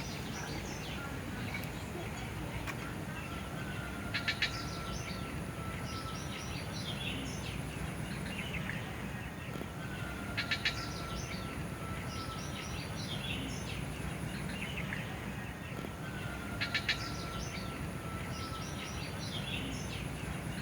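Birds chirping and calling over a steady low rumble of outdoor background noise. The same bundle of quick clicks, a long level whistle and a run of chirps comes back about every six seconds.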